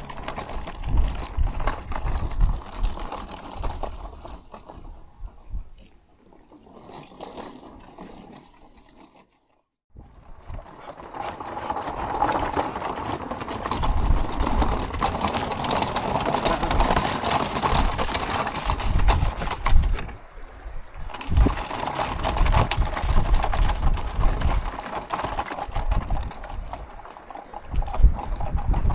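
Hand-pulled cart rattling and rumbling over a rough track, with footsteps; the sound breaks off abruptly twice where shots are cut together.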